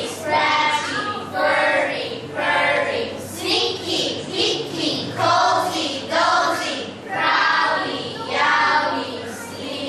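A choir of young girls reciting a poem in unison in English choral speaking, in short rhythmic chanted phrases.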